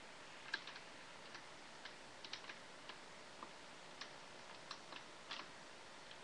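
Faint, irregular light clicks and taps, about a dozen over six seconds, from pens and other school supplies being handled and put into a pencil case.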